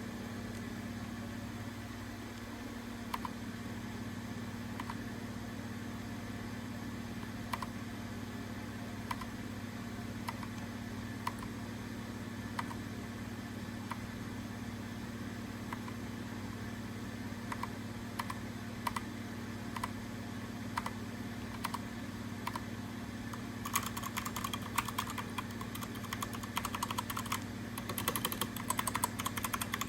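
Keychron K2 mechanical keyboard: single keys pressed one at a time, a click every second or two, then fast continuous typing for the last six seconds or so. A steady low hum runs underneath.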